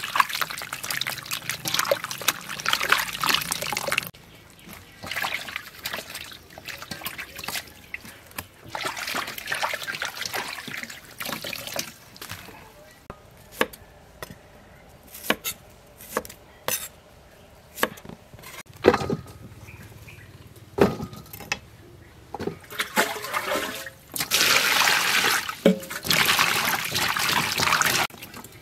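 Hands swishing oyster mushrooms around in a steel bowl of water. Then a knife cuts cauliflower into florets on a wooden chopping board, with irregular sharp taps and a few heavier chops. Near the end come loud swishing and splashing as the cauliflower florets are washed by hand in a bowl of water.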